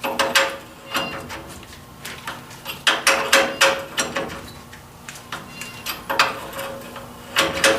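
Irregular metal-on-metal clanks and clinks of hand tools against steel parts, about a dozen, some ringing briefly, in three clusters.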